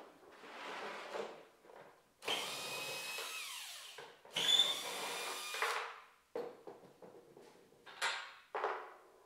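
Cordless drill-driver running in two bursts of about two seconds each, backing out the screws that hold a wooden table leg to its corner bracket. A few short knocks follow near the end.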